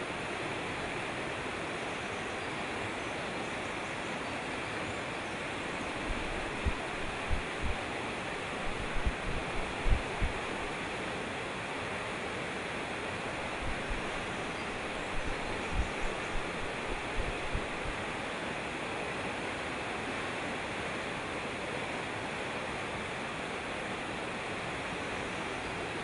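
Mountain stream rushing over rocks in whitewater rapids: a steady, dense rush of water. About six to ten seconds in, and again about fifteen to eighteen seconds in, a scatter of short low thumps rises above it.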